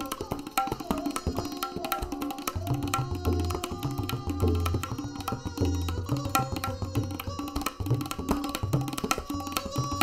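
Tabla solo: fast, dense strokes on the dayan, with deep resonant bayan bass strokes swelling in from about two and a half seconds in, over a sustained melodic accompaniment.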